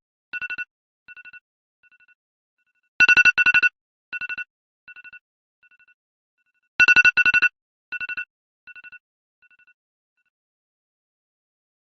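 iPhone alarm tone ringing on repeat. Each cycle is a loud pair of quick beep clusters followed by fainter, fading echoes, and the cycle restarts about every four seconds. The last round trails off into a pause of a few seconds near the end.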